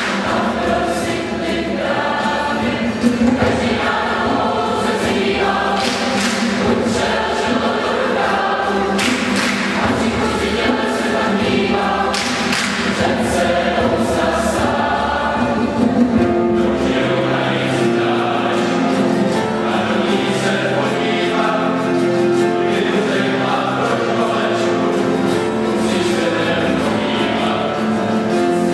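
Large mixed choir singing a song with piano and acoustic guitar accompaniment, in a church.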